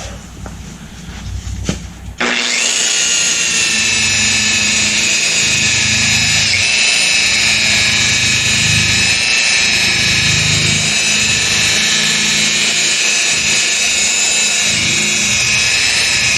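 Electric rotary buffer switched on about two seconds in, its motor running with a steady high whine as it works compound over fresh paint to cut out sanding scratches.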